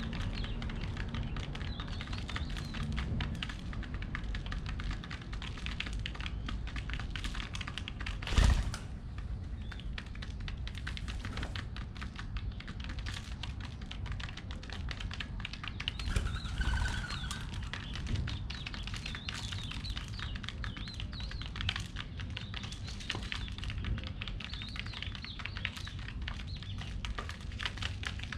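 Pigeons pecking seeds off the ground, a steady patter of quick taps, with small birds chirping in the background. One louder thump about a third of the way in.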